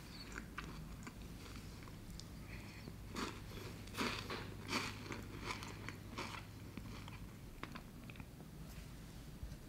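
Close-up ASMR eating of dragon's beard candy, a sweet of fine pulled-sugar threads around a peanut filling, being bitten and chewed. Irregular crisp crunches and crackles run throughout and are loudest around three to five seconds in.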